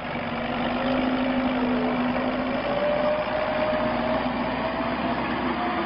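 Small 4x4 car's engine running under load as it drives through shallow river water, over a steady rushing splash of water pushed aside by the car. The engine note climbs slowly.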